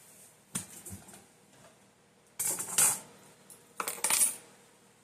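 Hard plastic fire alarm parts being handled: a sharp click about half a second in, then two short clattering, rustling bursts, one in the middle and one about four seconds in.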